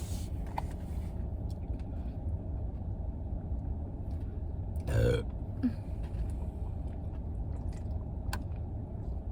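A single short burp about five seconds in, over the steady low rumble of the car.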